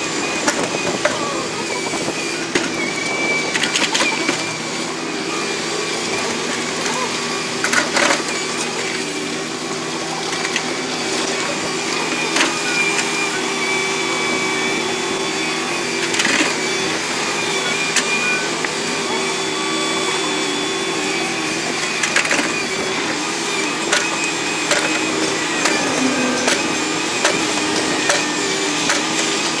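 Heavy construction machinery at work: a diesel engine running under varying load, its pitch shifting, with sharp metallic knocks a few times.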